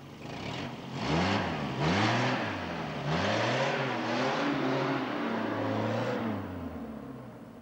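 Car engine revving hard as the car pulls away, its pitch climbing and dropping back three times in quick succession, then held high for a few seconds before fading as it moves off.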